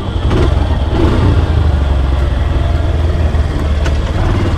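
A vehicle engine running with a steady low rumble.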